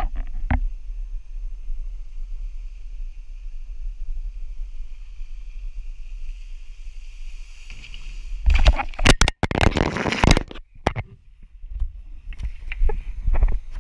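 Wind rushing over a pole-mounted action camera's microphone as a wakeboarder is towed across the water, with a faint steady whine. About eight and a half seconds in come loud knocks and rustling lasting about two seconds as he is clotheslined and falls, with a few smaller knocks near the end.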